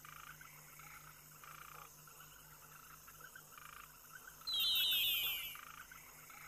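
Night ambience of frogs croaking in a faint repeating rhythm over a low steady hum, with a louder high, falling chirp about four and a half seconds in.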